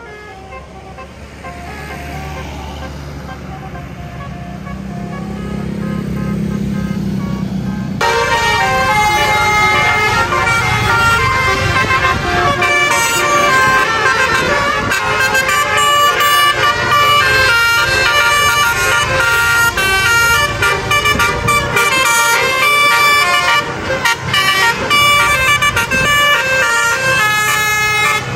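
A bus engine rumbling and growing louder. About eight seconds in, basuri musical air horns start up suddenly and play a fast run of changing notes over the engine.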